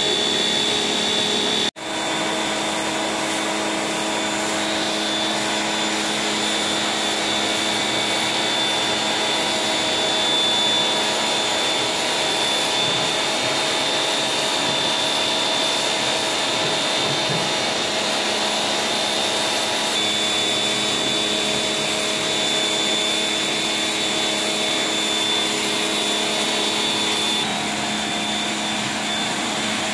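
Electric pressure washer running steadily, its motor and pump humming under the hiss of the water jet on a pebble-stone floor. The sound cuts out for an instant about two seconds in.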